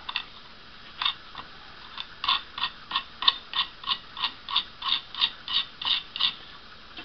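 Steel nut being run down a length of threaded rod by hand, clicking: a couple of scattered clicks, then a regular clicking of about three a second that stops about a second before the end.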